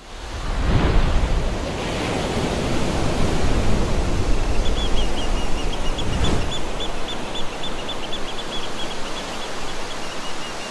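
Outro sound effects: a loud, steady rushing noise like surf, swelling about a second in and again around six seconds, with a quick run of short high chirps, about four a second, from about four and a half seconds on.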